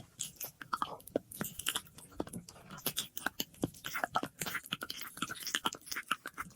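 Close-miked ASMR mouth sounds: a dense, irregular run of wet lip and tongue clicks and smacks, several a second, with an echo effect added.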